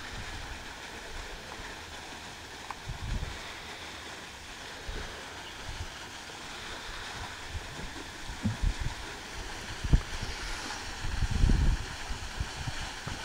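Steady rush of running water, with wind buffeting the microphone in gusts that grow stronger near the end.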